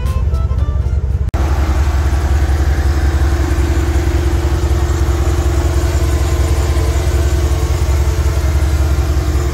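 Background music for about the first second, cut off sharply, then a GMC Sierra pickup's V8 engine idling steadily, heard from beside the open engine bay.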